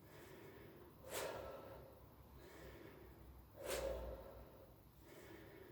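A person breathing hard through exercise: two sharp, forceful breaths about two and a half seconds apart, each fading quickly.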